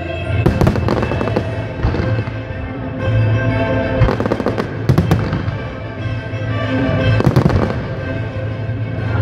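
Aerial fireworks shells bursting in a run of sharp bangs and crackles, loudest about four, five and seven seconds in, over music with long held notes.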